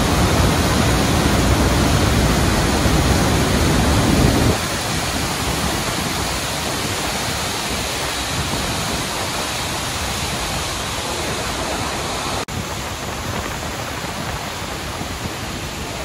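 The Rhine Falls: a steady, loud rush of falling water. A heavier low rumble drops away abruptly about four and a half seconds in, and the sound cuts out for an instant a few seconds before the end.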